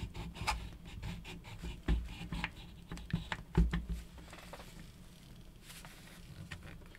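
Metal clicks and small knocks as an adjustable gas block is slid onto a rifle barrel and seated, with gloved hands rubbing on the rifle. The two strongest, duller knocks come about two and three and a half seconds in, and then it settles to fainter rubbing and a few light clicks.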